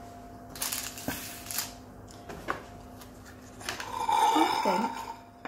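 Rustling and a few light knocks as things are handled on a worktop, then a short pitched vocal sound like a hum, about four seconds in.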